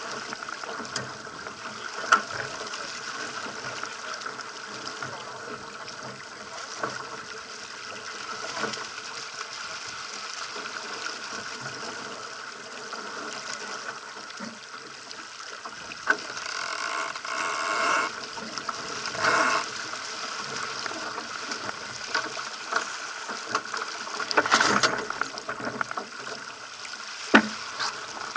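Water rushing and splashing along the hull of a Pacer sailing dinghy under way, with wind noise, a few louder surges, and occasional sharp knocks.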